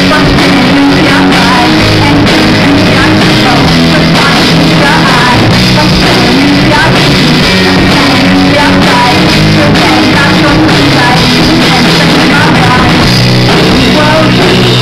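Live rock band playing loud: electric guitar, bass guitar and drum kit.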